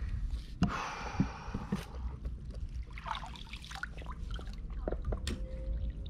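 Water splashing for about a second near the start, then trickling and dripping with small clicks and knocks at the water's surface around a float tube, over a steady low rumble.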